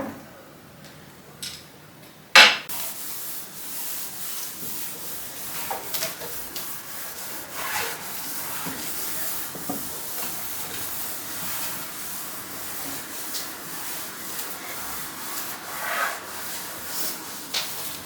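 Household cleaning: a sharp knock, then steady rubbing and scrubbing of a surface, with scattered small knocks and clinks.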